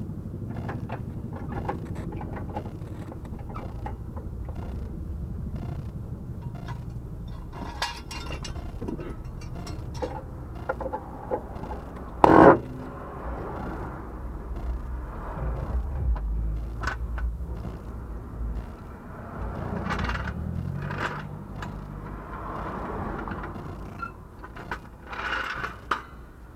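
2008 Ford Mondeo Mk4 driving slowly with a steady low rumble, and scattered knocks and clunks from the front suspension as it goes over speed bumps. There is one loud bang about twelve seconds in.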